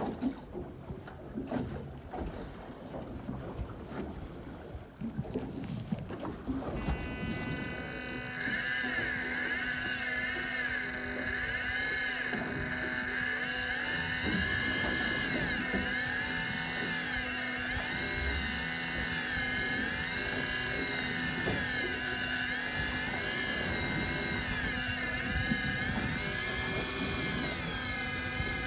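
Electric fishing reel's motor winding in line against a fish, a steady high whine that starts about seven seconds in and wavers slowly up and down in pitch as the load changes. Before it, only wind and sea noise.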